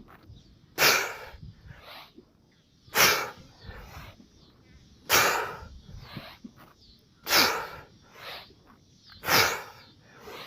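A person breathing out hard and forcefully about every two seconds while doing explosive power push-ups, one loud exhale per push-up with softer breaths between: the strain of hard effort.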